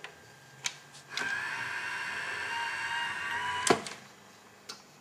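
Grundig BK 3000 VCR mechanism at work: a click, then a motor whirring with a steady whine for about two and a half seconds, cut off by a loud clunk, then a softer click near the end.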